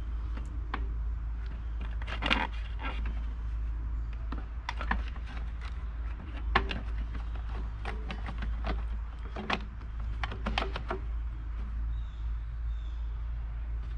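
Lawn mower with a bent crankshaft being pulled over on its recoil starter a few times, heard as scattered rasps and clicks over a steady low hum. The engine never fires, which one onlooker puts down to flooding.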